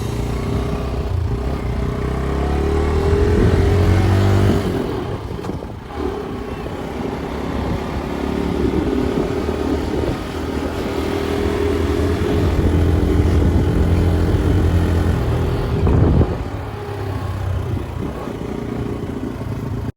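RKS motorcycle engine running under way, its pitch rising and falling as it accelerates and eases off, with a dip about six seconds in and another near the end.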